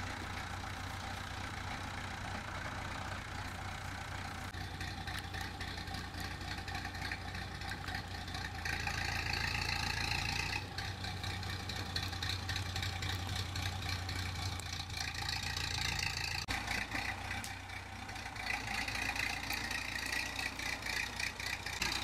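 An engine running steadily in the background, with a higher-pitched whine that swells in three stretches: about a third of the way in, around the middle, and near the end.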